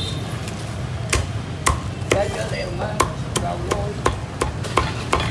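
Meat cleaver chopping crispy-skinned roast pork on a thick wooden chopping block. About a second in, a steady run of sharp chops begins, two or three a second, over a steady low hum.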